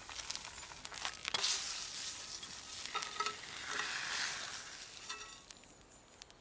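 Fish sizzling as it fries in a frying pan, with clicks and scrapes of a utensil against the pan. The sizzle dies down about five seconds in.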